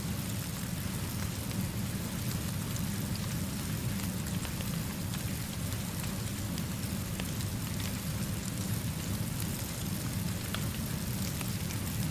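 Steady rainfall layered with a low, even rumble, and scattered faint ticks and pops through it, fitting a small fire crackling under the rain.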